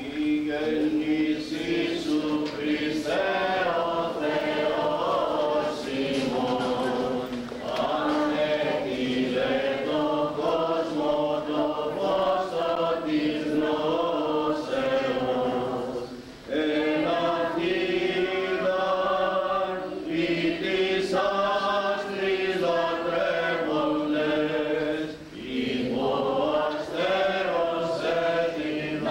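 A priest leading a small group of men's voices in a Christmas hymn, sung continuously, with short breaks between phrases about halfway through and again near the end.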